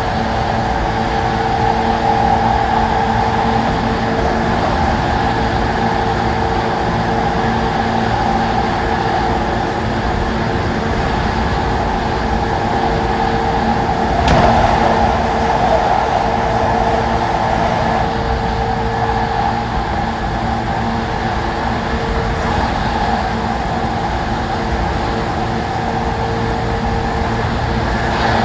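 Interior noise of a JR 185 series electric train: a continuous hum with steady tones under a wash of running noise, swelling louder for a couple of seconds about halfway through.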